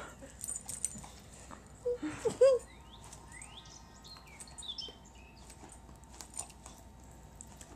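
Staffordshire Bull Terrier snapping its jaws at the air, a scatter of soft clicks and taps, with a brief voice-like sound about two seconds in.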